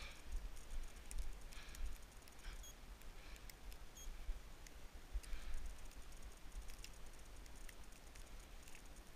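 Wind rumbling on the microphone, with a few faint rustles and small clicks of the camera and clothing being moved.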